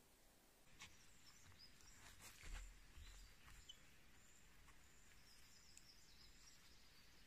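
Near silence: quiet forest ambience with a few faint, short bird chirps and soft rustles, including one dull thump about two and a half seconds in.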